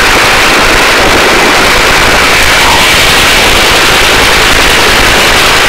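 Helicopter rotor blades chopping rapidly over the steady rush of the engine, heard at the open cabin door, very loud and steady throughout.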